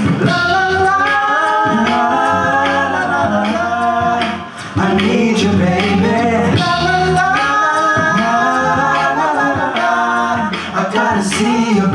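A male a cappella group singing in close harmony: several voices hold and bend long chords over a sung bass line, with sharp percussive clicks marking the beat. The singing drops off briefly about four and a half seconds in, then comes back.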